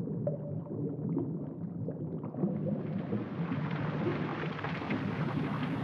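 Boiling water poured in a steady stream from a kettle onto chopped onion in a metal sieve, scalding the onion. The splashing gets hissier about halfway through.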